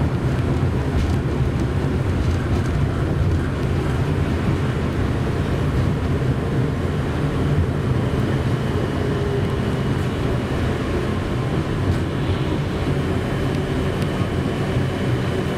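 KTM-31 (71-631) tram running along its track, heard from inside the cab: a steady rumble of wheels on rails and running gear. A faint, high, steady whine joins about halfway through.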